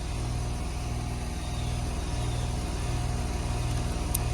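Outdoor condensing unit of a 2021 Carrier split-system air conditioner running: a steady low hum from the compressor and condenser fan, with a slow, even pulsing in the hum.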